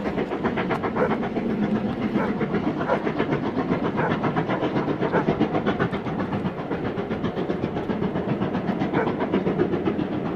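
Steam locomotive hauling a train of coaches, its exhaust chuffing in a quick, even rhythm.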